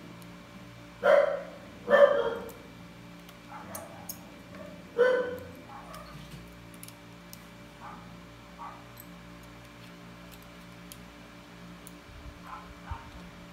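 A dog barks three times, at about one, two and five seconds in, then gives a few fainter yelps near the end. Light clicks sound in between.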